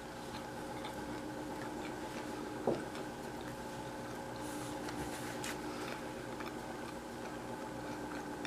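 Quiet room tone: a steady hum with faint scattered ticks, and one brief louder sound a little under three seconds in.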